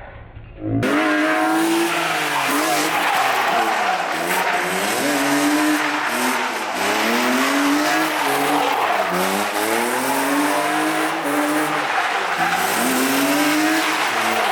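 BMW E36 engine being revved hard, its pitch climbing and dropping again and again as the car is drifted, with tyres squealing. It starts suddenly about a second in.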